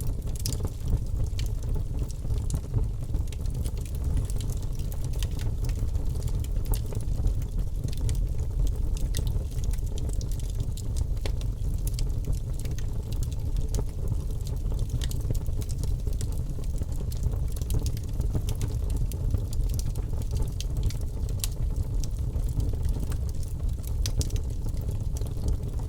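Birch logs burning in a fireplace: a steady low rumble of the fire with frequent small, sharp crackles and pops throughout.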